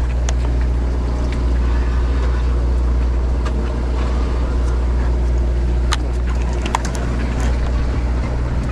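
Sportfishing boat's engine running with a steady low drone. A few short sharp clicks sound over it, the clearest about six seconds in.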